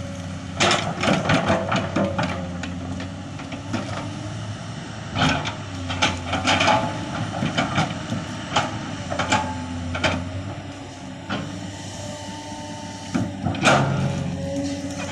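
Komatsu PC200 excavator's diesel engine running steadily under load, with repeated irregular clanks and knocks, heaviest in clusters about a second in, around five to seven seconds, and near the end.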